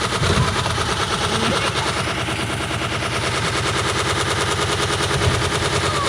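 Stripped-out washing machine drum spinning at full speed, driven straight from its motor, with a brick and loose junk hammering around inside in a rapid, continuous rattle.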